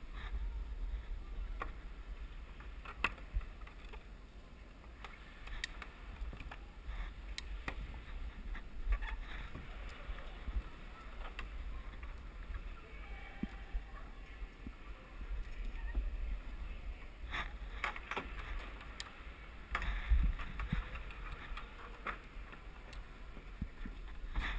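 A climber's hands and shoes on the holds and wall of an indoor climbing wall: scattered, irregular knocks and scuffs over a steady low rumble from the body-worn camera's microphone.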